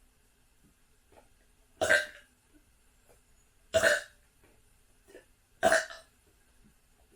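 Three short, loud burps about two seconds apart, brought up by chugging carbonated soda.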